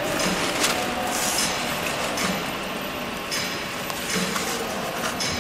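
Paper tube machine running steadily as paper plies wind onto the tube, a continuous mechanical rumble with a few sharp clicks.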